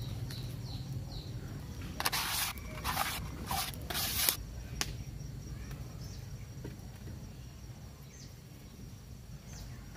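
A green leaf wiped around the inside of an oiled clay cooking pot, greasing it: four short scraping swishes in quick succession about two seconds in, with a faint click just after, over steady outdoor background noise.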